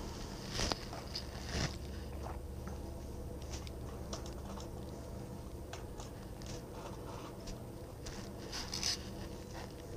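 Hand brace turning a spoon bit into a wooden board: a faint crunching scrape of the bit cutting wood, with scattered small clicks and a few sharper clicks, one about half a second in, another a second later and one near the end.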